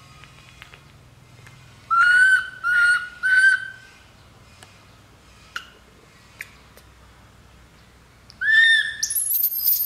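Baby monkey crying in short, high-pitched calls: three cries about two seconds in, then a longer run of shriller cries near the end.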